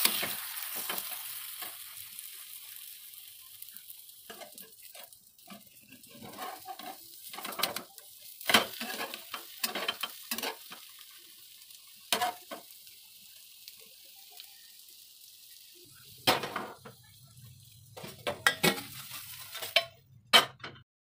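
An egg omelette frying in a nonstick pan: a loud sizzle right at the start as it is flipped, then a steady fainter sizzle. A metal spatula scrapes and taps against the pan in scattered bursts, with more pan clatter near the end.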